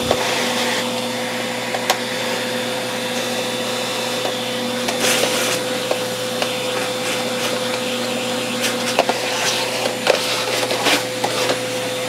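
Vacuum cleaner running steadily, its hose nozzle sucking dust off the plastic underside of a Roomba robot vacuum, with scattered clicks as the nozzle knocks against the plastic.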